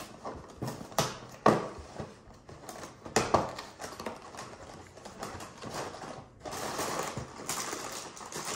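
Cardboard cereal box being opened: a few sharp snaps and tearing of the glued flaps, then a couple of seconds of steady rustling and crinkling as the plastic liner bag is pulled open near the end.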